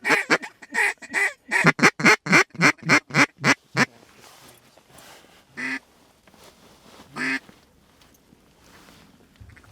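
A duck call blown in a fast run of loud quacks, about four a second, stopping after about four seconds, followed by two single quacks a second and a half apart.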